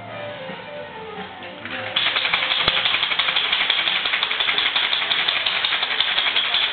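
Ice rattling hard inside a cocktail shaker as it is shaken vigorously, a fast, dense clatter that starts abruptly about two seconds in.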